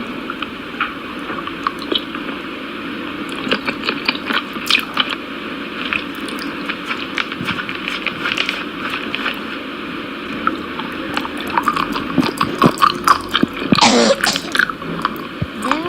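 Food ASMR eating sounds: close-miked wet squishing and smacking of food being chewed, made of many sharp irregular clicks, growing busier and louder in the last few seconds.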